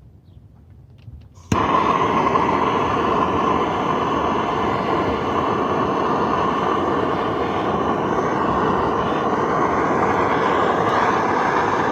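Propane roofing torch burning with a steady, loud rushing noise, coming on suddenly about a second and a half in.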